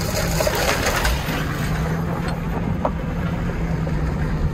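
An engine running with a steady low hum and rumble, with a few faint clicks.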